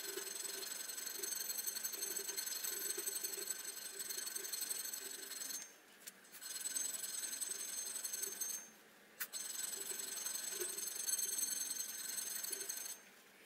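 Hand file rasping over the edge of a steel bracket held in a bench vise, in quick back-and-forth strokes, with two short pauses about six and nine seconds in.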